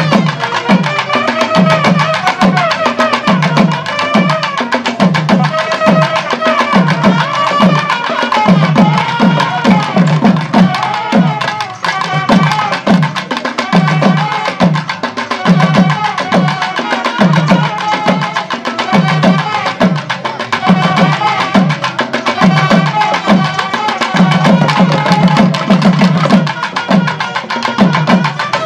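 Live karakattam folk band music: nadaswaram-type reed pipes play a winding melody over a steady, driving beat of barrel drums struck with sticks.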